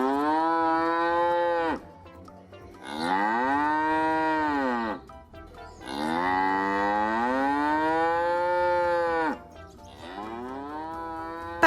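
Cow mooing three times, each moo long and drawn out, the third the longest.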